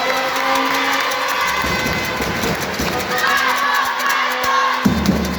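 Sideline crowd noise at a football match: spectators and players shouting and calling out over a general din, with a louder shout about three seconds in.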